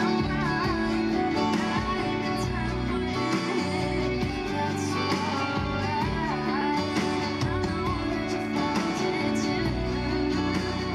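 Playback of a work-in-progress indie-pop song: a sung lead vocal over strummed acoustic guitar and a backing arrangement, playing steadily and cutting off just after the end.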